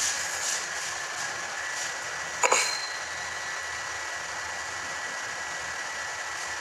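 Steady hiss of background room noise with a faint, thin, high steady tone, and one sharp click about two and a half seconds in.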